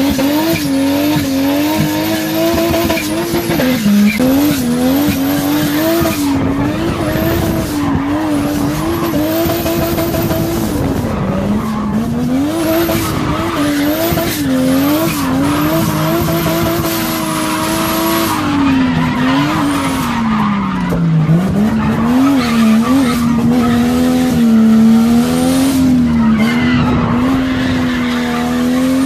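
Nissan Silvia drift car heard from inside the cabin, its engine held at high revs and dropping and climbing again with each throttle lift while the car drifts, with tyres squealing and scrubbing underneath.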